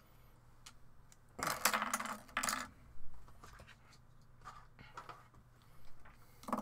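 Hard resin 3D-printed model parts clinking and clattering against each other and the tabletop as they are picked up and gathered. The clicks come in a few clusters, loudest about one and a half to two and a half seconds in, with lighter ones later.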